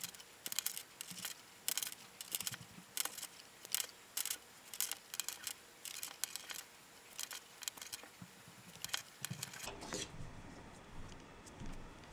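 550 paracord being handled and pulled through its knots: an irregular run of short scratchy swishes and rubs as the nylon cord slides through the weave and is tightened.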